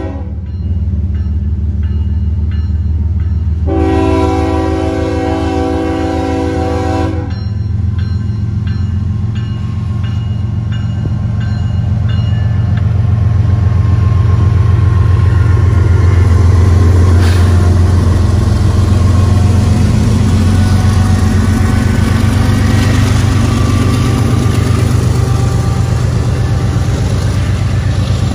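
Norfolk Southern diesel-electric freight locomotive sounding its multi-note air horn in one long blast from about 4 to 7 seconds in, the horn signal for a road grade crossing. Then the locomotives' engines and the wheels on the rails pass close by, the engine rumble loudest midway as the lead units go past.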